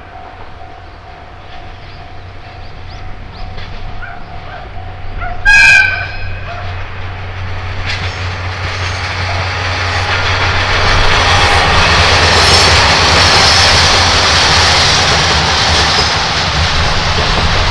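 DE10 diesel locomotive sounding one short, loud horn blast about five and a half seconds in, then approaching and running past with a rising rumble of engine and wheel clatter that grows loud through the second half.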